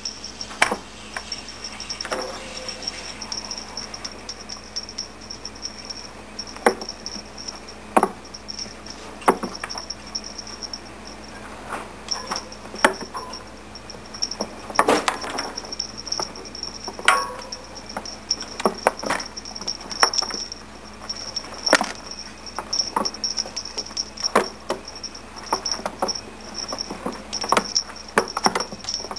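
Kittens playing: irregular taps, knocks and scrabbles of paws and claws on a hard floor as they leap and pounce at a wand toy.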